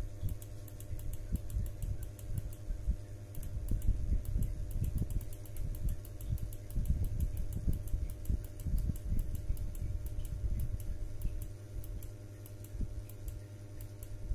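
Computer mouse scroll wheel clicking rapidly, several notches a second, as the mosaic viewer zooms in. Under it is a low rumble and a steady hum.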